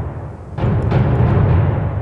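Sampled ensemble of large orchestral drums from Spitfire Albion One's Darwin Percussion Ensemble, struck together once about half a second in. A deep booming hit that rings on, following the fading tail of an earlier stroke.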